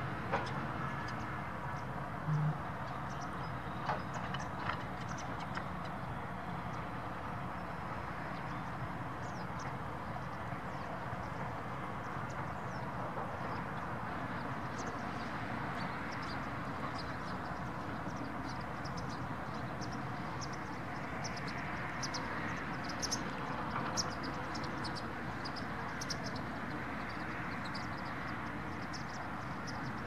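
Steady outdoor background noise, like a distant traffic hum, with many short, high chirps or ticks scattered through it, thickest in the second half.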